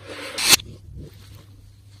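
Slime being squished and pressed by hand: a wet squelch that builds to a sharp peak about half a second in and cuts off, followed by faint soft squishing.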